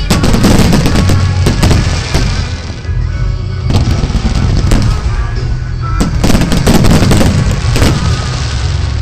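Fireworks shells bursting in dense volleys of sharp bangs and crackles, heaviest in the first two seconds and again about six to eight seconds in, over loud music played for the show.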